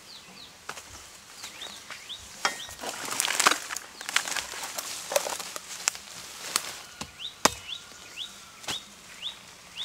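Footsteps and rustling in dry bamboo-leaf litter, with many sharp crackles and snaps. Small birds chirp in short rising calls several times.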